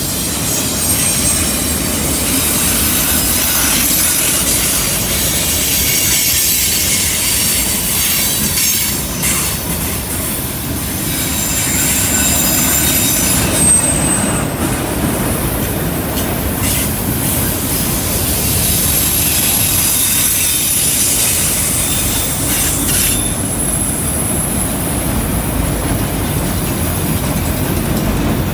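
Freight train of autorack cars rolling past on a curve: a steady loud rumble and clatter of steel wheels on rail, with high flange squeals coming and going as the wheels grind against the rail through the curve.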